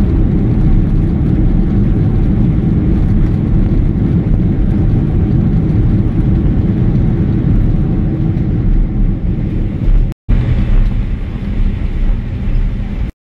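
Steady loud rumble of a Boeing 767's engines and rushing air, heard from inside the cabin during a night landing. The sound cuts out completely for a moment about ten seconds in and again near the end.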